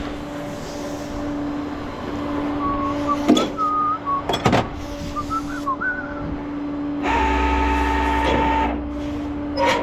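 Tow truck running with a steady hum, with a few high squeaks and sharp metal clanks, then a louder whine with a deep rumble for about two seconds near the end.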